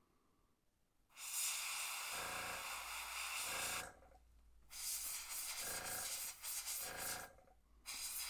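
Gravity-feed airbrush spraying paint: three spells of hissing air, the first starting about a second in, with short pauses between them as the trigger is let off.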